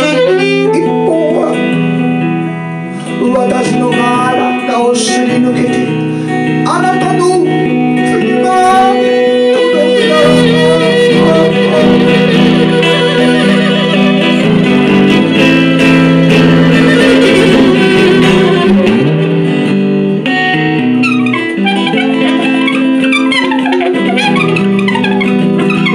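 Live duo music: a hollow-body electric guitar played through an amplifier, with an alto saxophone holding long notes and sliding between pitches over it.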